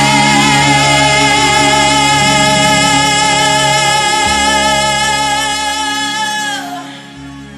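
Melodic hard rock band holding the song's final sustained chord, with a long high note over it. About seven seconds in, the note bends downward and the whole chord dies away.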